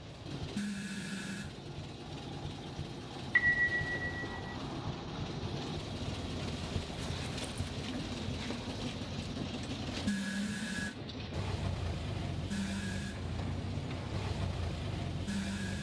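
Inside a moving bus: the engine runs with a steady low rumble and cabin noise, broken by a few short beeps and a single ringing ding about three seconds in.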